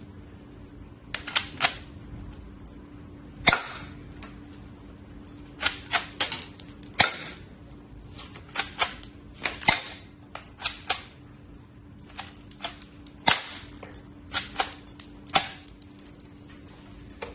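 Toy shell-ejecting pistol being worked by hand: sharp plastic clacks of the slide being racked and the gun snapping, often in quick pairs, at irregular intervals, as it ejects plastic shell cases.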